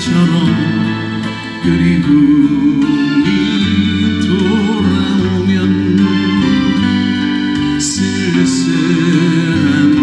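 A male singer performs a Korean ballad live, singing to his own acoustic guitar through a PA, over an accompaniment of long, steady bass notes.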